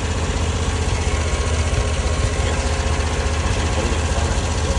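Small diesel engine of a Chinese mini skid steer running steadily at a constant speed.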